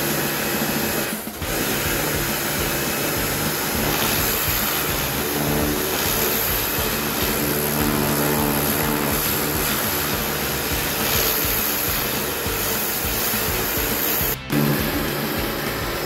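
Pressure washer running steadily, its water jet hissing against a galvanised metal calf trough, with the sound dropping out briefly about a second in and again near the end.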